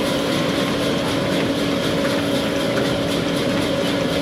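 Sawmill machinery running steadily: a continuous mechanical drone with a few steady humming tones and no change in level.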